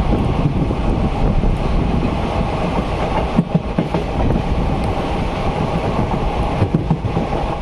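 A moving train running on the rails: a steady, loud rush of running noise with the wheels clattering over the track, and a few sharper knocks about halfway through and near the end.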